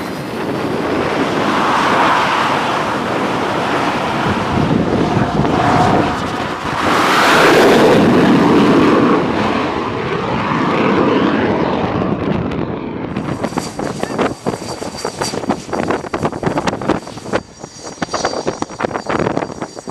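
T-45 Goshawk jet trainer's single turbofan engine at full power for a catapult launch, swelling to its loudest about seven seconds in and fading off around thirteen seconds. After that a quieter, uneven jet noise with a steady high whine.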